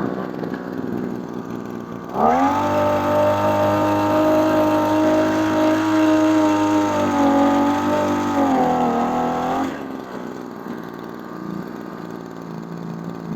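Small two-stroke Taiwan TU-26 pump engine idling, then revved up sharply about two seconds in and held at high speed for about seven seconds, sagging a little near the end, before dropping back to idle. It is being test-revved after its carburettor air screw was turned half a turn, to see whether it still dies under throttle.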